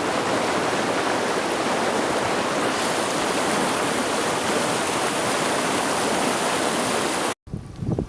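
Mountain river rushing over rocks in a steady, even roar of moving water. It cuts off abruptly about seven seconds in, giving way to a gusty low rumble.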